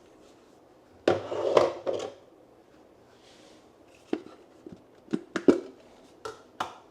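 Parts of a Ninja Creami Swirl ice cream maker knocking and clicking as they are handled and fitted together: a clatter about a second in, then a string of short, sharp clicks and taps in the second half.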